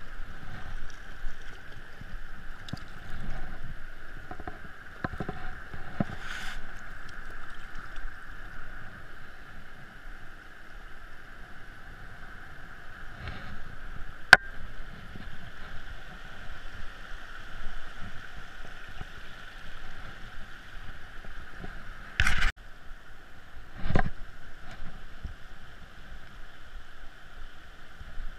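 Shallow river running over stones, a steady rushing hiss, with scattered knocks and scrapes of footsteps on river rocks. Two louder knocks come close together near the end.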